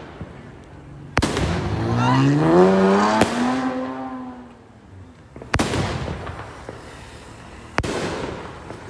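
Fireworks going off: four sharp bangs, about a second, three, five and a half, and nearly eight seconds in, each trailing off in a crackling hiss. Between the first two bangs a pitched sound rises in pitch and then fades away.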